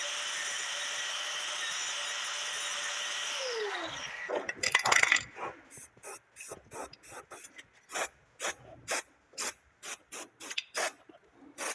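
A handheld power tool runs steadily at one pitch, then its pitch drops as it spins down about three and a half seconds in. Then come a series of short, separate noisy strokes, about one or two a second, as the bodywork is worked by hand.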